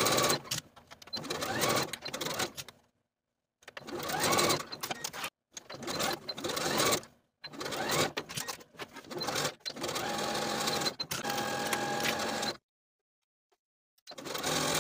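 Janome Skyline computerised sewing machine stitching seams in short runs. Each run speeds up with a rising whine, then stops, with brief gaps between runs.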